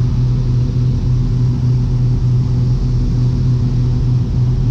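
Piper Seneca V's twin turbocharged six-cylinder piston engines and propellers droning steadily, heard inside the cockpit, a low, even hum with no change in pitch.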